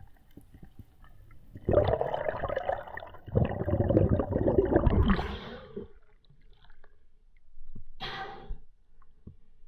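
Muffled rushing and gurgling of water heard through a mask-mounted camera underwater as a freediver swims up, stopping about six seconds in. A short splashy burst follows about eight seconds in as the camera breaks the surface.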